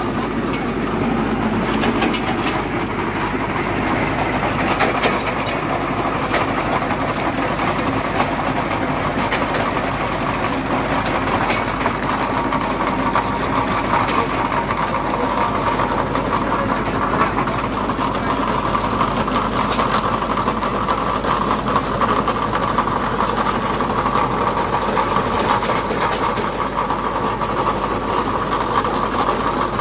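Tractor engine running steadily under load while a tractor-mounted chain trencher digs a narrow trench in soil, with a fast, continuous clatter from the digging chain.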